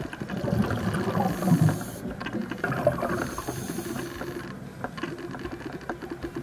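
Underwater sound: a scuba diver's exhaled regulator bubbles rushing up in two bursts, over a low rumble with scattered clicks.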